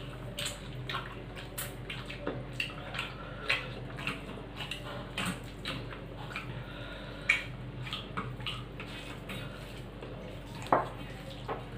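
Eating by hand from a steel plate: wet chewing and mouth sounds with fingers mixing rice and curry, a string of small irregular clicks and ticks, two of them louder, one about seven seconds in and one near the end. A steady low hum lies underneath.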